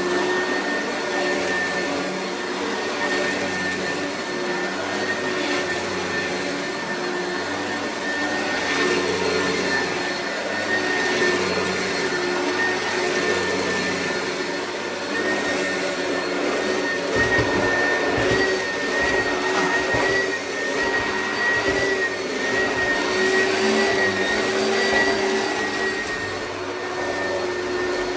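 Oreck vacuum cleaner running steadily: a motor whine with a steady high tone over airy suction noise, its level wavering a little. A low rumble joins in about two-thirds of the way through.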